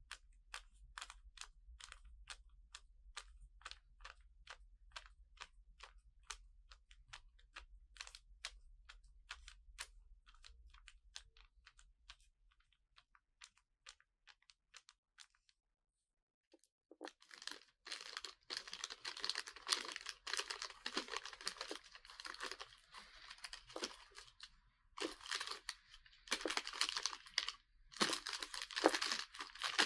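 Light, quick tapping on paper sheets, about two to three taps a second, stopping about twelve seconds in. After a short pause a plastic bag of metal bolts is crinkled and squeezed in bursts, loudest near the end.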